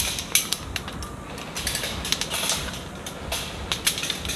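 Irregular sharp clicks and crackles, several a second, with a few louder snaps among them.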